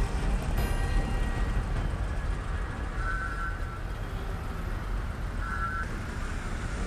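Motorcycle and scooter traffic idling and moving through a flooded underpass, a steady low rumble of engines. Two short beeps sound, about three seconds in and again near five and a half seconds.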